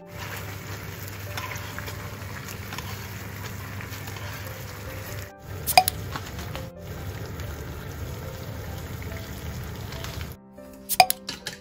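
Teriyaki sauce and chicken thighs sizzling and bubbling steadily in a frying pan, broken by two brief cuts, with a short bright ding about halfway through. Near the end the sizzling stops and plucked-string background music begins.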